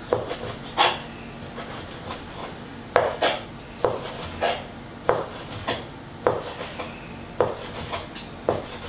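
Chef's knife slicing rare roast beef into thin strips, each stroke tapping the white cutting board: about a dozen sharp taps at an uneven pace, roughly one to two a second.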